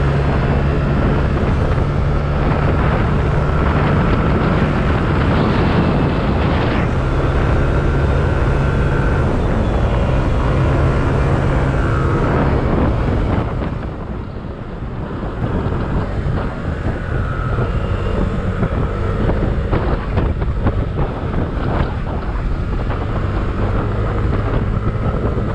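Heavy wind rush on the microphone over the Yamaha Aerox scooter's single-cylinder engine, running steadily at speed. A little past halfway the engine note and the rush drop as the scooter slows, then build again to a steady run.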